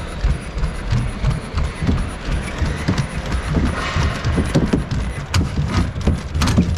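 A Unitree quadruped robot's legs working and its feet knocking and scraping on plywood as it clambers over the course: an irregular mechanical clatter over a low rumble, with a run of sharp knocks near the end.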